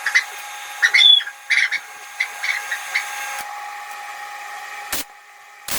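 Arc welding on a broken bolt, building up weld to extract it: a steady sizzling hiss with irregular crackles. The arc cuts out about three and a half seconds in, and two sharp knocks follow near the end.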